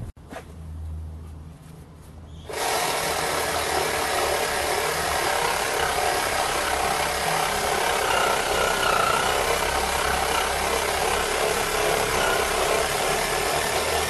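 Small cordless reciprocating saw with a coarse pruning blade cutting through a small tree trunk. It starts about two and a half seconds in and runs steadily, without a break.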